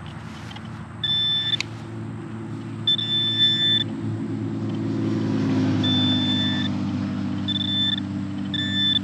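Metal detector beeping on a buried metal target: five steady high-pitched beeps, each under a second long, at irregular intervals over a steady low rumble.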